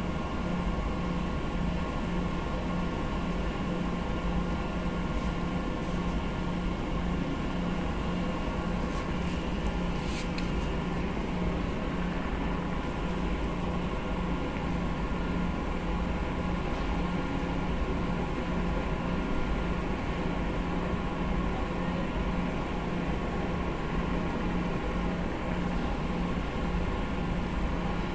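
Steady low hum of a merchant ship's engines and machinery under way, with several constant tones over a rushing hiss.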